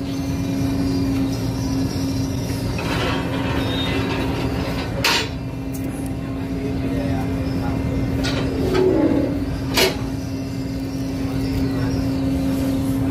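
A car ferry's engines running: a steady low drone with one steady humming note. Two short sharp knocks cut through it, about five and ten seconds in.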